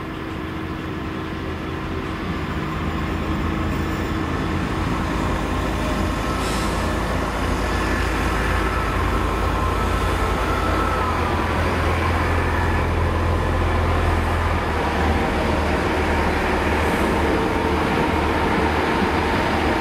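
Diesel train engine running with a low, steady rumble that grows a little louder over the first few seconds, with faint high whining tones above it.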